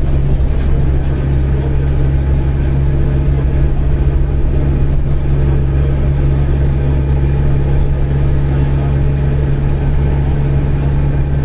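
Mercedes-Benz OF-1722M bus's diesel engine running at a steady pitch, a low, even drone carrying the growl of its cardan driveshaft.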